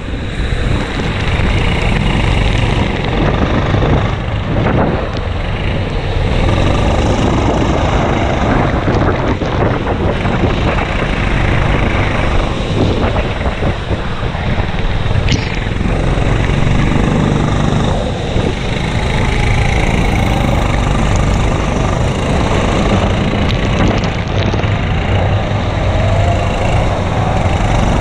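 Racing kart engine running hard at speed, heard from on board the kart, with a few brief dips as it comes off the throttle.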